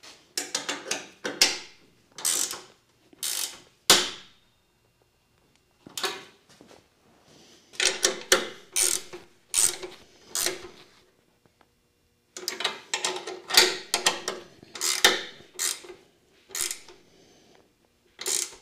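Ratchet wrench tightening bolts on a CNC machine's fourth-axis mounting bracket: runs of quick ratcheting clicks, each stroke a short burst, broken into three main spells by brief pauses.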